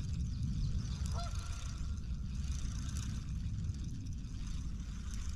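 Low wind rumble on the microphone, with a single short honk about a second in that rises in pitch and then holds briefly.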